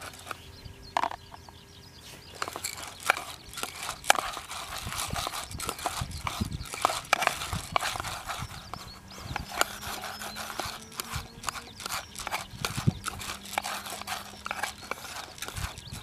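Wooden chopsticks stirring raw rice in oil inside an aluminium mess tin: a rapid, uneven run of clicks and scrapes as the chopsticks knock against the tin and the grains shift.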